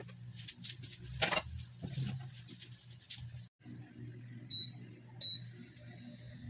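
Two short, high electronic beeps from an electric cooktop's control panel as its buttons are pressed to set it, over a steady low hum. A few light clicks and knocks come before them.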